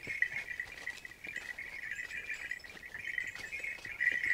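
A chorus of forest insects chirring steadily in one high-pitched, finely pulsing tone, with a few faint clicks.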